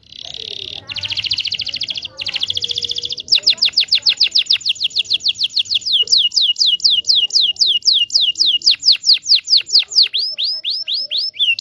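Domestic canary singing a long rolling song: a buzzy rapid trill in two short breaks, then from about three seconds in a long run of quick, repeated falling whistled notes, several a second.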